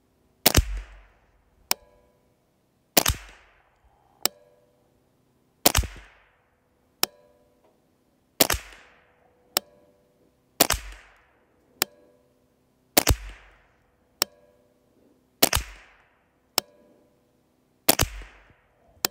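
JP Rifles JP15-22 semi-automatic .22 LR AR-style rifle firing eight single shots, one about every two and a half seconds. Each shot is followed about a second later by a fainter sharp click.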